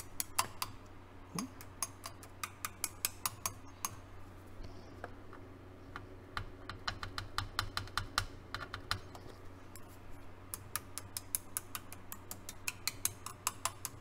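A wooden stick tapping lightly and repeatedly on the circuit boards and pins inside a Yamaha CR-1020 stereo receiver, in quick runs of small clicks over a faint steady hum. The receiver gives no pop and the protection relay does not drop out, the sign that the resoldered cracked joint on the protection board now holds.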